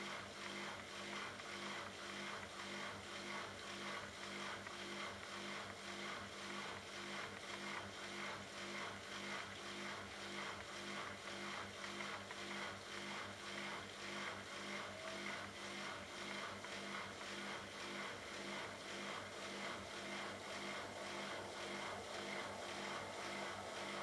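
Bosch Logixx washing machine's drain pump pumping out water, a steady hum that sounds rough, with a regular pulsing as the drum turns slowly with waterlogged pillows before the final spin.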